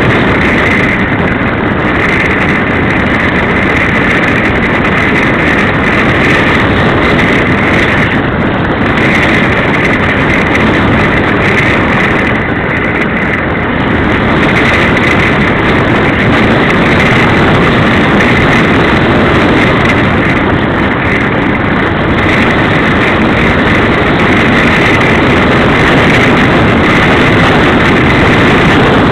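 Wind noise from the airstream rushing over the microphone of a small camera towed behind a slope-soaring glider in flight: a loud, steady rush with a high whistle that comes and goes.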